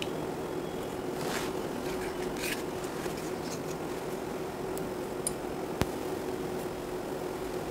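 Steady background hum with light handling noise at a workbench: two brief rustles in the first few seconds, then a single sharp click a little before the end.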